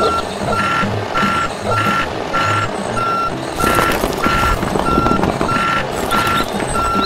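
Vehicle reversing-alarm beeping, one steady tone repeating a bit under twice a second, over a low rumble. About four seconds in, miniature clay bricks clatter out of the tipping trailer onto the sand.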